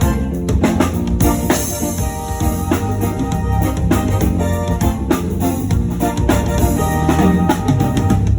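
Live band playing with a drum kit, bass drum and snare hits driving a steady beat under keyboard and bass lines.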